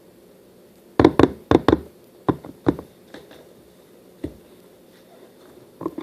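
A stirring utensil knocking against a bowl: a quick run of knocks about a second in, then a few scattered ones, as borax is mixed into a glue-and-water mixture to make slime.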